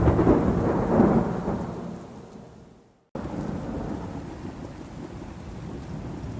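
A roll of thunder over rain that fades away over about three seconds, then cuts out briefly, followed by steady rainfall.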